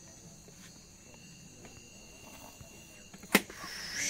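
Crickets chirring steadily at night. About three seconds in comes a single sharp knock, then a brief scraping rustle, as plastic dishes and a food container are handled.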